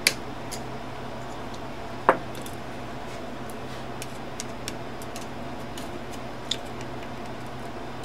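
Screwdriver and small steel parts clicking and tapping against the metal frame of an old Underwood typewriter while screws are taken out of its key carrier: a sharp click at the start and another about two seconds in, then a few faint ticks. A steady low hum lies underneath.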